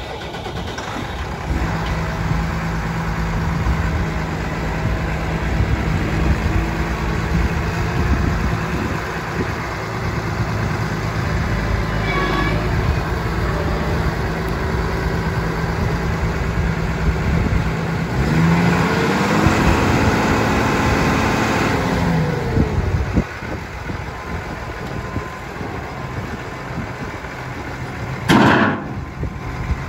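New Holland T6.175 tractor's six-cylinder diesel engine running steadily. About two-thirds of the way through, its revs rise, hold for a few seconds, then fall back. A single sharp knock comes near the end.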